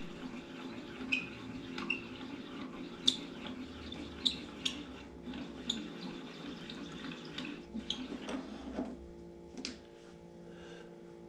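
Scattered light clicks and taps of shotgun shells and a nutcracker-made roll crimper being handled, over a steady low hum; a rougher rubbing noise underneath stops about nine seconds in.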